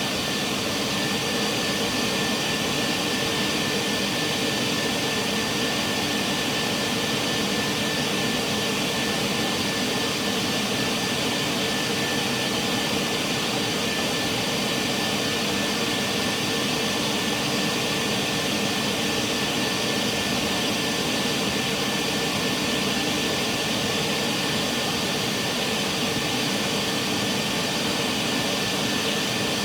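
Vacuum used for dryer vent cleaning running steadily: a constant rush of air with a thin, steady high whine.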